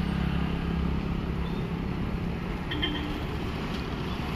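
Street traffic: a bus's diesel engine runs with a steady low hum that fades over the first couple of seconds as the bus pulls away, while scooters pass close by. A brief high squeak comes near three seconds in.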